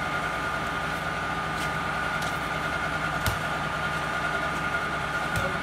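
An engine running steadily, with a steady high whine over a low hum and a few faint clicks.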